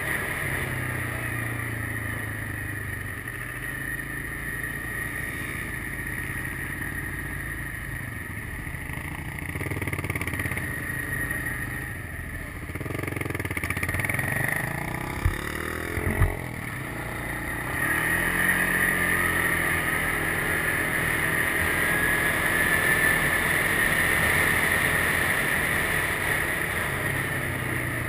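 Quad ATV engine running while riding on pavement, its pitch rising and falling with the throttle around a turn about halfway through, with a steady high whine over it. Two sharp knocks come about halfway through.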